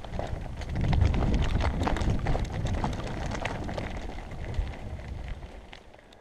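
Wind buffeting a helmet-mounted camera while a downhill mountain bike's tyres crunch and clatter over a gravel track, with rapid small knocks and rattles from the bike. The whole sound fades out near the end.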